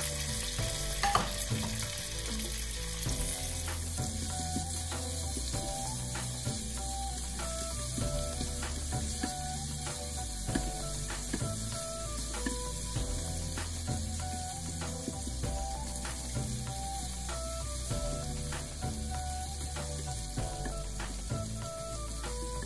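Sliced onions and whole spices sizzling in hot oil and butter in an aluminium pressure cooker, a silicone spatula stirring and scraping against the pot in frequent short strokes.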